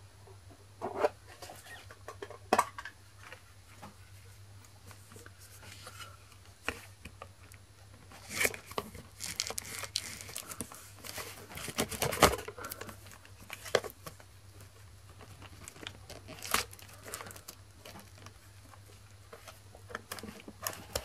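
Plastic shrink-wrap being picked at and torn off a cardboard trading-card bundle box: irregular crinkling and tearing in short bursts, with scattered clicks and knocks from handling the box. The busiest, loudest stretch is in the middle.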